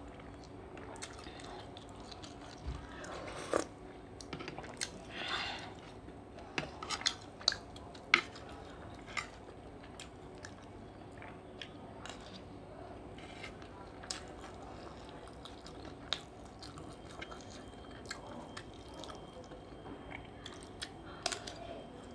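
A person eating seafood fried rice close to the microphone: chewing and biting, with scattered sharp clicks.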